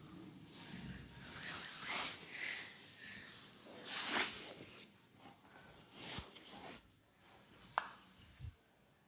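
Hands sliding and rubbing over skin in a massage, a series of swishing strokes that soften after about five seconds, with one sharp click near the end.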